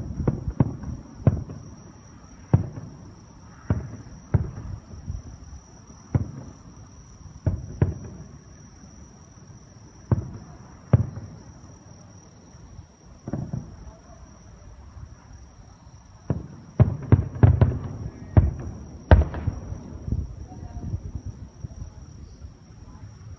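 Fireworks bursting in a string of irregularly spaced booms, each with a low rumbling tail, building to a rapid volley of bursts late on.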